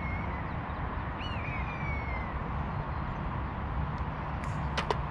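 A bird calls twice, each a descending call, over a steady low rumble of wind. Near the end, a putter strikes a golf ball on a short putt: sharp clicks close together, the loudest sound here.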